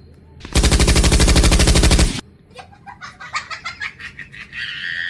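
A loud, fast rattle of evenly spaced bangs, more than ten a second, lasting about a second and a half, like a burst of machine-gun fire. It is followed by a quieter run of quick clicks and high squawk-like calls.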